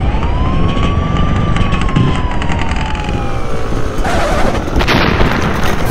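Dirt bike engine and wind rumble on a helmet camera while riding, with a siren wailing up and then slowly falling over the first three seconds; the engine and wind noise grow louder about four seconds in.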